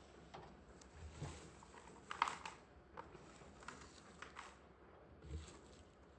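A rabbit's paws shuffling through loose hay on a mat as it gathers the hay, giving faint scattered rustles and crackles, loudest about two seconds in, with a couple of soft thumps.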